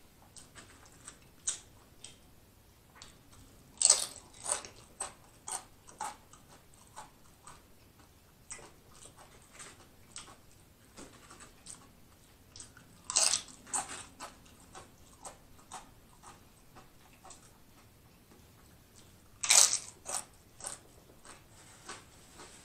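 Tortilla chips being bitten and chewed up close: three loud crunching bites, about 4, 13 and 19 seconds in, each followed by a run of smaller chewing crunches that die away.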